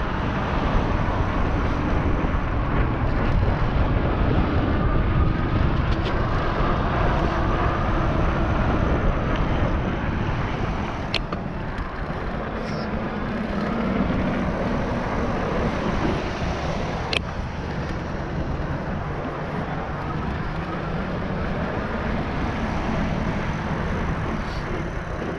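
Steady wind rush on the action-camera microphone and rolling noise from an NCM Aspen electric bike being ridden along a trail, with two sharp clicks partway through.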